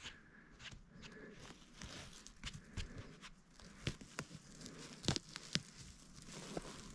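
Dry spruce needles and small twigs rustling and crackling as a hand brushes through the forest litter around a mushroom, with scattered sharp snaps, the loudest about five seconds in.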